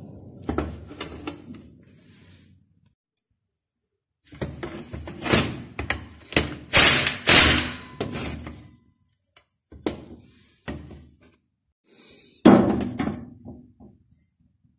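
Metal brush cutter engine parts being handled and worked on: a run of knocks and clinks, busiest in the middle, with short pauses between.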